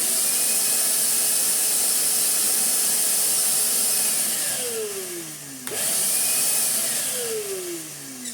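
Titan TTB351 wet and dry vacuum's motor switched on through its newly fitted replacement switch, running steadily for about four seconds, then switched off and winding down with a falling whine. It starts again cleanly a second and a half later, runs briefly and winds down again: the new switch is working.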